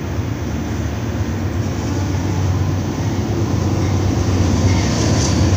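Norfolk Southern double-stack intermodal freight train rolling past, a steady rumble of wheels on the rails that grows gradually louder.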